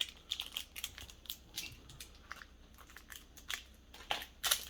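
Twix wrapper crinkling and crackling as it is handled: a string of short, irregular rustles, with a louder cluster near the end.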